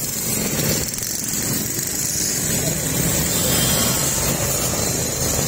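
Small motorcycle engines running at low speed, over the steady hiss of heavy rain.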